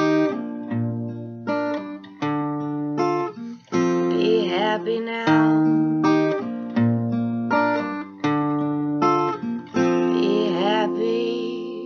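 Acoustic guitar strumming chords, roughly one stroke a second with short breaks. A last chord about ten seconds in rings out and fades.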